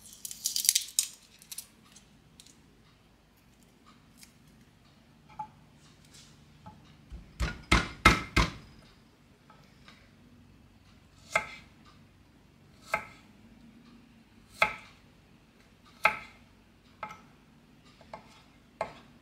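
Cuisinart paring knife cutting a garlic clove on a wooden cutting board: a brief rustle at the start, a quick cluster of loud knocks about eight seconds in, then single sharp knocks of the blade on the board every second or so.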